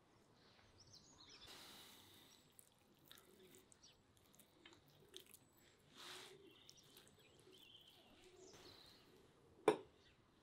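Faint, quiet eating sounds: meat being pulled apart and chewed, with small scattered clicks and one sharp click near the end.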